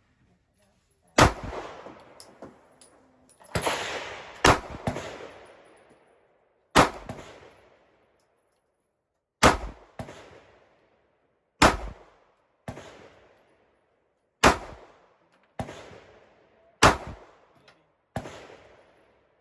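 Handgun firing slow, deliberate single shots, about eleven spaced one to three seconds apart, each trailing off in a short echo.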